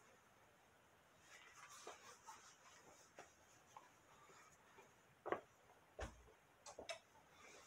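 Near silence with faint rustling and scattered soft taps, then two louder knocks, about five and six seconds in, the second a dull thud: handling noise from a hand-held camera being moved around.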